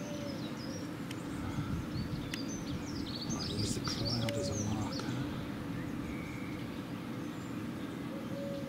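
Small birds chirping in short, high calls, busiest a few seconds in, over a steady low rumble of background noise.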